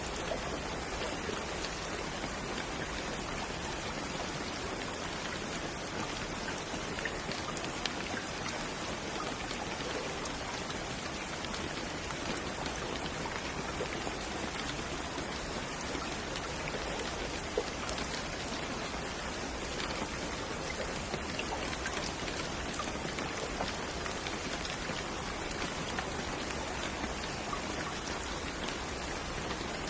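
Steady rain falling, with individual raindrops pattering on a surface.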